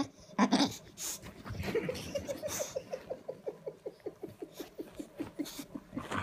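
English bulldog grumbling and whining, with a brief whimper about half a second in, then a long run of short pitched pulses, about five a second.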